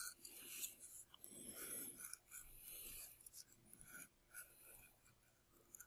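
Faint, irregular scratching of a knife blade shaving the wingtip of a small model aircraft wing, stroke by stroke.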